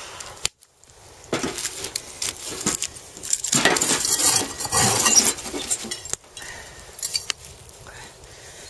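A metal saucepan scraping and scooping hot embers out of a steel fire box, the coals clinking and rattling against the metal, loudest in the middle, then tipped out onto the ground with a few last clinks.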